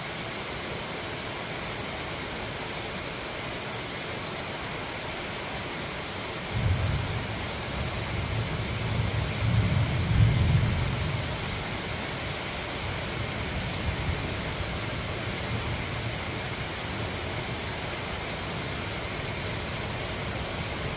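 Steady rain hiss with a roll of thunder that breaks in suddenly about a third of the way through, swells for a few seconds and dies back to a low rumble.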